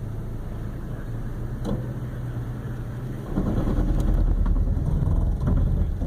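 Pickup truck running at a crawl, heard from inside the cab, with a steady low engine hum. About three seconds in, a louder, rough low rumble starts: Toyota crawl control's ABS pulsing the brakes at each wheel to hold a slow, steady speed on the slope.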